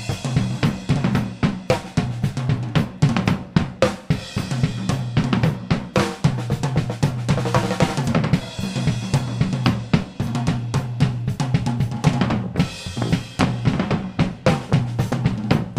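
Live drum kit playing a steady beat: snare and bass drum hits with hi-hat, and cymbal washes about halfway through and again near the end, over a low steady note underneath.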